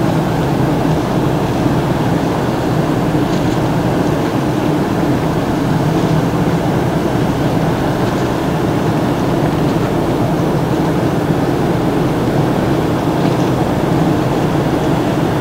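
Steady low rumble with a faint hum, the engine and ventilation drone of the cruise ship MSC Lirica carried across the water as she comes in at slow speed.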